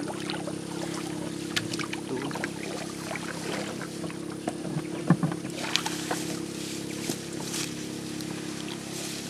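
Water splashing and scattered knocks in and against a canoe, the sharpest about five seconds in, over a steady low hum.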